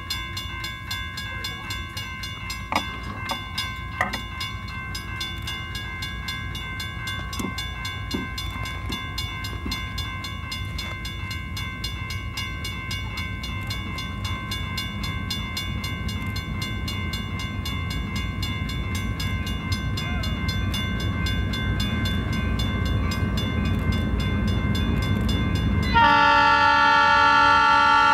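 Diesel locomotives approaching, their low engine rumble growing steadily louder. Near the end, the lead locomotive's air horn sounds loudly: a held chord of several tones.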